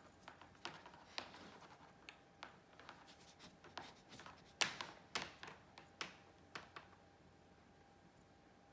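Faint, irregular light clicks and scratches, about a dozen over six or seven seconds, some sharper than others, then only faint room tone.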